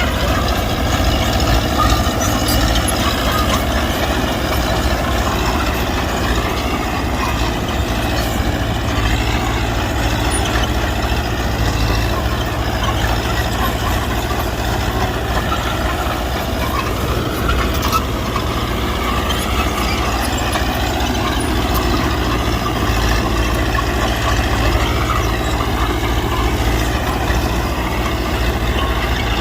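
Mitsubishi BD2G bulldozer's diesel engine running steadily, its pitch wavering slightly up and down.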